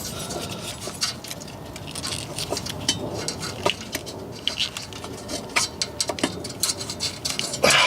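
Hand tools working the nuts on an exhaust O2 sensor's flange: scattered, irregular metallic clicks and clinks, with a louder noisy burst near the end.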